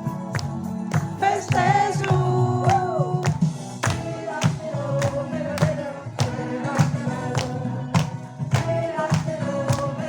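Group of voices singing together over hand percussion that strikes a steady beat about twice a second.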